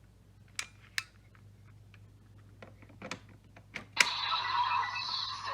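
Plastic clicks and taps of a Kamen Rider roleplay toy being handled. About four seconds in, a sharp click sets off an electronic sound effect from the toy's small speaker.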